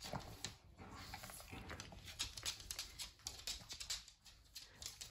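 A pug snuffling as it sniffs around, with its claws clicking on a wooden floor as it walks.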